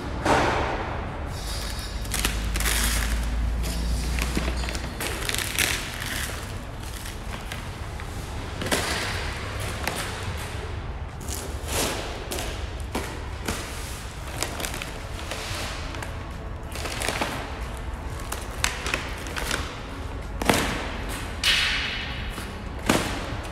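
Brown packing paper and tape being torn and crumpled off a car bumper cover in irregular crackles and rustles, with occasional knocks as the plastic bumper and packaging are handled; a few sharper, louder rips come near the end.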